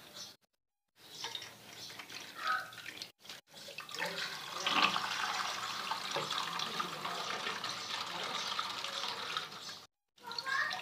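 Water running steadily from a tap while water balloons are filled, broken by a few abrupt dropouts.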